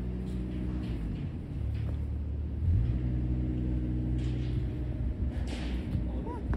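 Steady low hum of an idling engine, several even tones droning together, with a brief shift in pitch about two seconds in.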